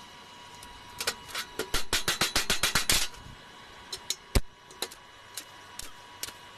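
A quick run of sharp metal taps for about two seconds, then a few short crackles as a stick-welding electrode is scratched on the shovel to strike the arc.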